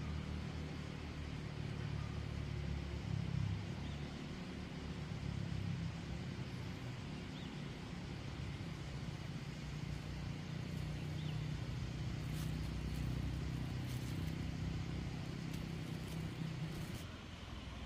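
A steady low engine hum of a motor running somewhere nearby, with a few light clicks near the end.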